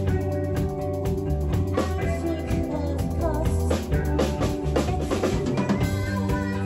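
Live rock band playing, with a drum kit beating out kick and snare hits over sustained bass and guitar notes, some of them bent.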